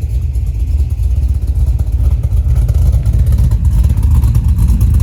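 Catless LS2 V8 engine idling with a loud, steady low rumble, running on a base tune.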